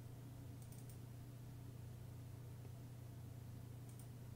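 A quiet, steady low hum of room tone, with a few faint clicks from a computer keyboard and mouse: a couple about half a second in and another near the end.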